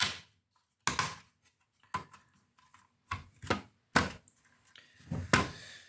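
Sharp knocks and clatter of hard plastic and metal parts of an opened cassette multitrack recorder being handled and set down on a bench. There are about seven separate knocks with short quiet gaps, and a brief scrape near the end.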